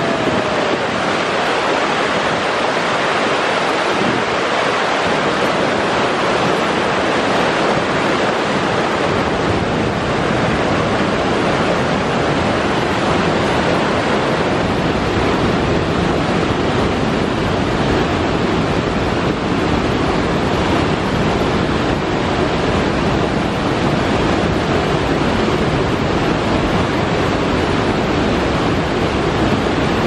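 Steady rushing roar of white-water rapids pouring over granite ledges at Screw Auger Falls on the Bear River, with a deeper rumble building after about ten seconds.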